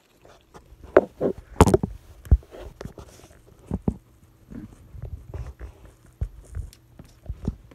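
Dog chewing and licking at a marshmallow Peeps candy close to the microphone: irregular wet smacks and clicks of its mouth.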